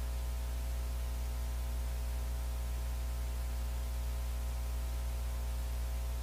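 Steady electrical hum, a low buzz with a stack of fainter overtones, under an even hiss that does not change.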